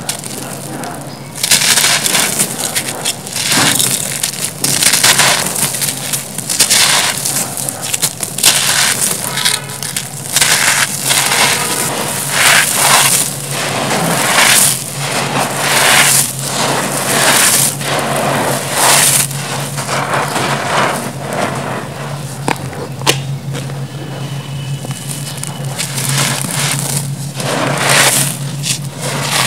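Hands scooping, squeezing and dropping handfuls of dry crumbled concrete gravel and dust: a run of irregular gritty crunching and rustling strokes, louder and denser from about a second and a half in.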